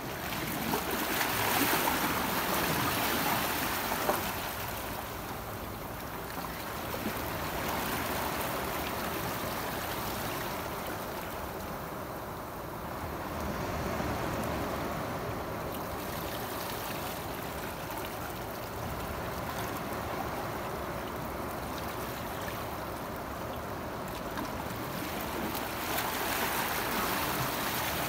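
Sea waves washing and lapping, a steady rush of water that swells and eases, loudest in the first few seconds and again near the end.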